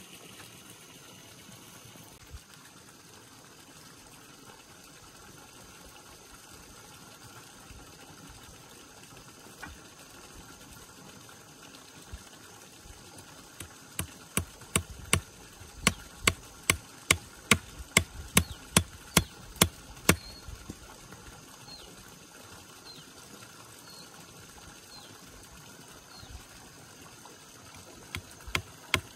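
Repeated sharp tool strikes, about two or three a second, for some seven seconds from about halfway through, with a few more starting near the end. Under them is a faint, steady trickle of water.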